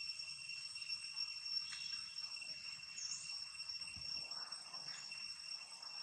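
Insects droning steadily in a high, even tone that holds without a break, with a faint short rising chirp about three seconds in.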